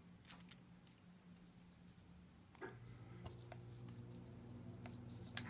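A few light metal clicks as a thin steel rod is handled and pulled with hand tools, two close together near the start and one more a little later. A faint steady low hum begins about halfway through.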